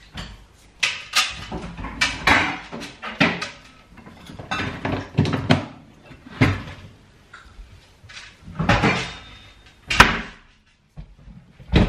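Kitchen clatter: cupboard doors opening and closing and a blender's jug and base being handled on the worktop, a run of separate knocks and bumps with a sharp knock about ten seconds in.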